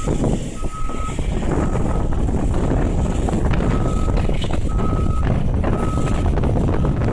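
A vehicle's reversing alarm beeping at one high pitch, about once a second, some beeps fainter than others, over a steady loud low rumble of wind on the microphone.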